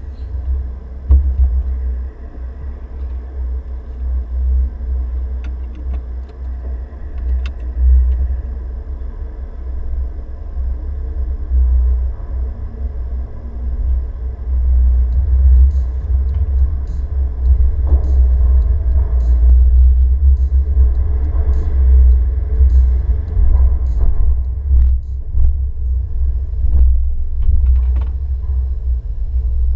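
Steady low rumble of a small car's engine and tyres heard inside the cabin as it moves off slowly, growing louder about halfway through, with a few sharp knocks near the end.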